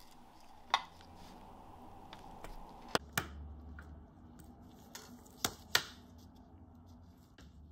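Small sharp clicks and taps of watchmaker's fine metal tools and a clear plastic parts tray being handled on the bench, about five of them, two coming in quick pairs about three and five and a half seconds in.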